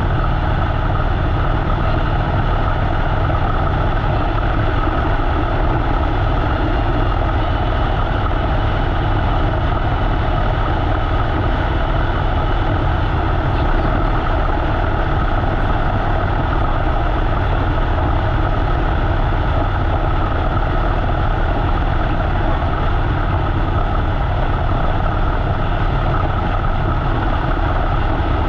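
Harley-Davidson V-twin motorcycle engine running steadily as the bike rides along, with a steady rush of wind and road noise over it.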